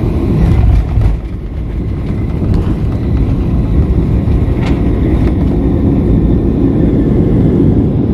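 Cabin noise of a Boeing 737-800 landing: loud low rumble of the airflow and engines, a sudden change about a second in as the wheels meet the runway, then the rumble of the rollout with a few knocks and rattles. The noise builds again as the jet slows on the runway with its spoilers up.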